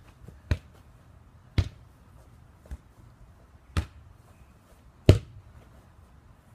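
A ball bouncing: five separate thuds about a second apart, the last one the loudest.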